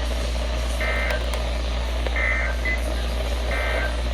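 EAS end-of-message data bursts on NOAA Weather Radio: three short digital buzzing bursts, each about a third of a second, about a second and a half apart, signalling the end of the alert. They sit over the receiver's steady hum and hiss.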